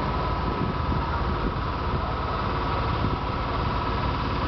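Steady city street noise: a continuous low rumble with a steady mechanical hum over it.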